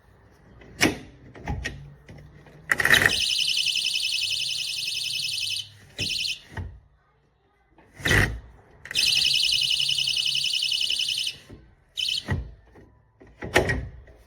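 HIIXHC wireless magnetic door and window alarm sounding: a shrill, fast-pulsing alarm tone for about two and a half seconds, then two short chirps, then the alarm again for a little over two seconds. The alarm sets off when the magnet is separated from the sensor. Plastic clicks and knocks from the unit being handled come between the alarm bursts.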